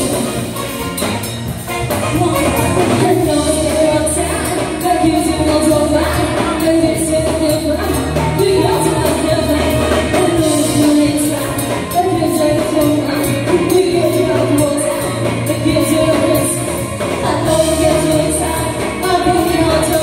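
Live band playing a song with a singer, over a steady drum and cymbal beat.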